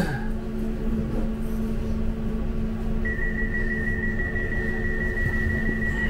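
Bombardier M5000 tram standing at a platform with a steady low electrical hum; about three seconds in, a single high warning tone starts and holds, the door-closing warning before the tram departs.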